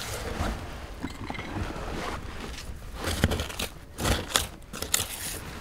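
Digging through soil and rubble: irregular scraping and crunching, with a few sharp knocks in the second half.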